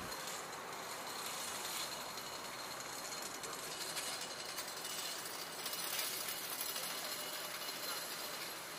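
Tram rolling slowly toward the stop: a steady noise of wheels on the rails, with a few faint clicks spaced about two seconds apart.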